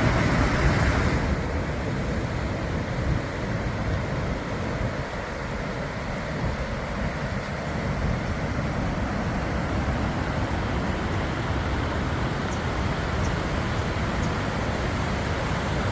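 Floodwater rushing through a rocky riverbed: a steady, even rushing noise.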